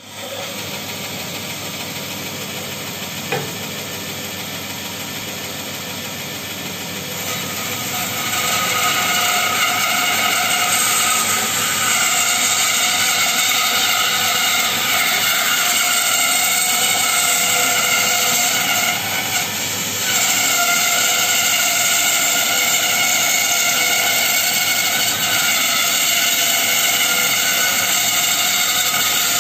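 Bandsaw running, then cutting through a thick hardwood board from about eight seconds in, which brings a louder, steady whine over the blade noise. There is a single knock about three seconds in, and the cutting sound dips briefly near twenty seconds.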